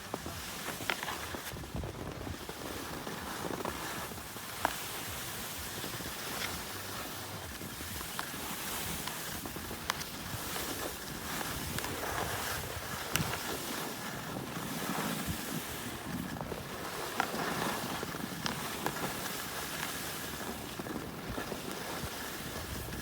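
Wind rushing over the microphone and skis sliding on snow during a downhill ski run, a steady noise with a few sharp clicks scattered through it.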